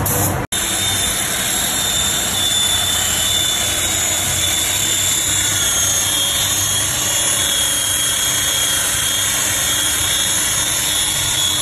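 Spray gun hissing briefly, then, after a cut, an electric rotary polisher with a wool pad running steadily with a high whine as it buffs car paint.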